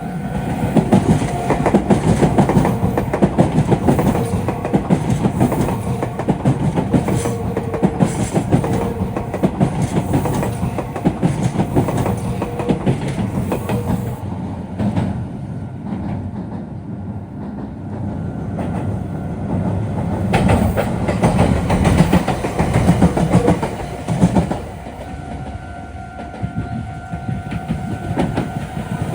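Meitetsu electric trains passing over the points of a railway junction, their wheels clattering rhythmically over the rail joints and switches. The noise eases off about halfway through, builds again and drops away near the end.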